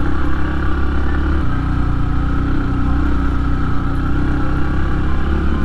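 Motorcycle engine running steadily, heard close from the bike's own handlebar-mounted camera, its note shifting about a second and a half in.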